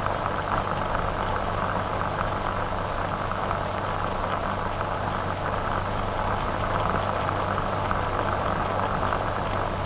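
Steady hiss and crackle of an old film soundtrack, with a low hum underneath.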